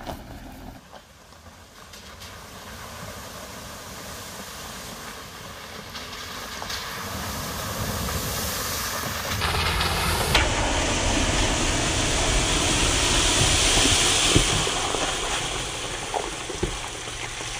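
Jeep Wrangler driving through a muddy puddle, its tyres splashing and spraying water; a steady rushing noise that grows louder over the first dozen seconds.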